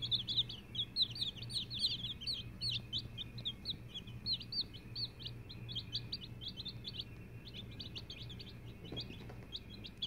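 Baby chicks peeping: many short, high, downward-falling chirps overlapping, dense at first and thinning out in the second half, over a low steady hum.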